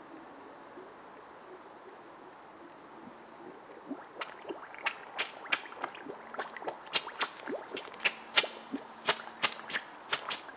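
Firecracker smoking in pond water: a faint fizz, then from about four seconds in a run of irregular sharp pops and watery plops, several a second, as bubbles burst at the surface.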